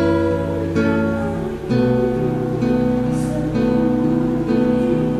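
Acoustic guitar music with no singing: strummed chords, a new chord about once a second.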